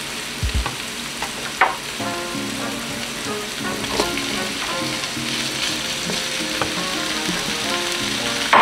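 Diced peppers, onions and garlic sizzling in hot oil in a nonstick skillet, with a wooden spatula stirring and scraping at the start and sliced smoked turkey sausage tipped into the pan with a light knock about four seconds in. Soft background music plays underneath.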